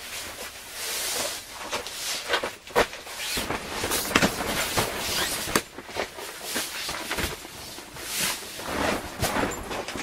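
Rustling of a nylon sleeping pad, pillow and sleeping bag being handled and laid on a camp cot, with footsteps on the tent floor and several sharp knocks and clicks of the cot frame.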